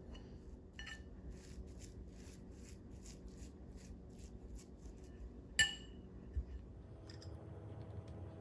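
Kitchen utensils at work: a run of light strokes about twice a second, then one sharp metallic clink and a duller knock. A low steady hum comes in near the end.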